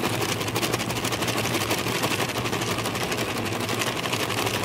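Emery Thompson 12-quart batch freezer running as it pushes ice cream out through its open door chute: a steady hum with a fast, even rattle.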